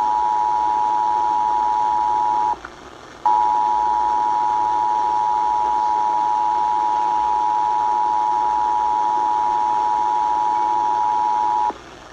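Emergency Alert System attention signal: the steady two-tone 853 and 960 Hz alarm, received over the radio with hiss behind it. It breaks off about two and a half seconds in for under a second, then sounds again for about eight seconds and cuts off shortly before the end.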